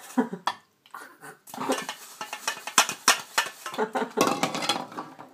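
Pots, pans and cutlery clattering while being washed up by hand: a quick run of sharp metal knocks and clinks, with a brief pause about a second in.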